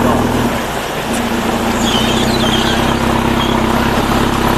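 Off-road 4x4's engine running steadily, with a brief dip about half a second in.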